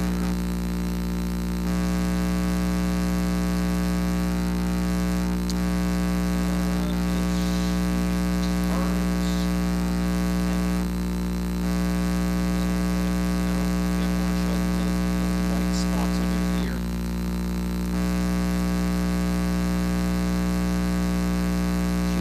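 Steady electrical mains hum in the wired microphone's audio line: a constant buzz of many even overtones, with the level dipping briefly a few times.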